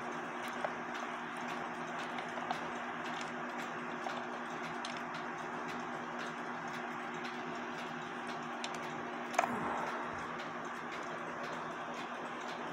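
Faint small clicks and scrapes of a screwdriver backing Phillips screws out of a wooden cuckoo clock case, with one louder knock about nine seconds in, over a steady background hum.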